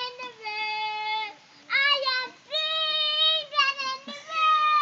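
A child singing a wordless melody in long, high held notes, pausing briefly twice for breath.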